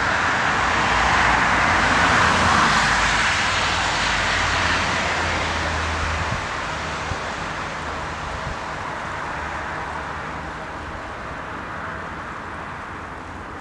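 Jet aircraft engine noise heard from a distance: a steady broad rush that is loudest in the first few seconds and then fades slowly.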